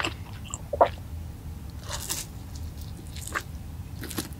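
Crispy crumb-coated fried chicken drumstick dipped in sauce, then bitten and crunched close to the microphone, in a few short separate crackles.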